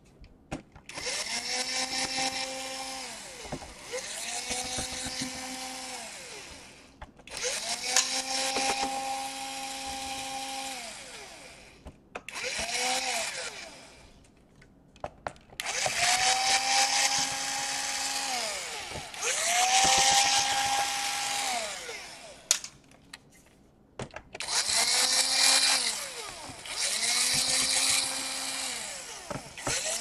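Cordless electric screwdriver backing out the bottom-panel screws of a laptop. It runs in short bursts of two to three seconds, about eight times, with a whine that rises as the motor spins up and drops as it winds down, and small clicks between the runs.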